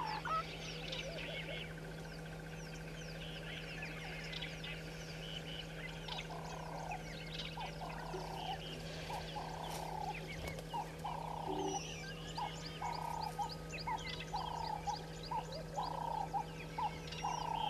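Many small birds chirping and trilling together. From about six seconds in, a short, low, rounded call repeats about once a second, coming a little faster toward the end.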